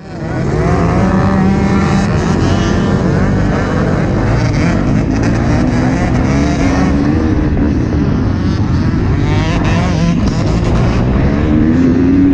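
2021 KTM 250 SX-F's single-cylinder four-stroke engine revving hard under acceleration, heard from onboard the bike. Its pitch climbs through each gear and drops back at the shifts, about seven seconds in and again near the end.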